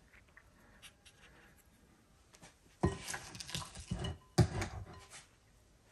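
A spoon scraping and knocking against a glass mixing bowl and an aluminum foil loaf pan as thick batter is scooped out. It is mostly quiet with faint ticks, then comes a cluster of knocks and scrapes about three seconds in and another about four and a half seconds in.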